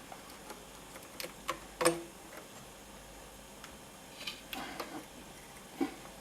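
Scattered light clicks and small knocks, the loudest about two seconds in and a few more near the end, as of hands and small tools handling parts of an SACD player being worked on.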